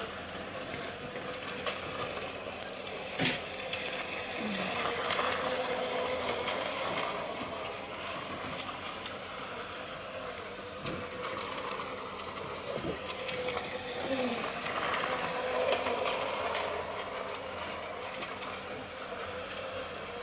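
Battery-powered toy train running on plastic track: its small electric motor and gears whir steadily, with scattered sharp clicks from the wheels and track.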